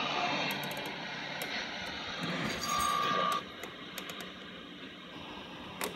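Vintage 1950s Westinghouse H-327T60 AM radio between stations: static hiss with whistling tones, one sliding down in pitch over the first two seconds and a brief steady whistle around the middle. The noise then drops, and there are a few sharp crackles, typical of tuning the dial across the AM band.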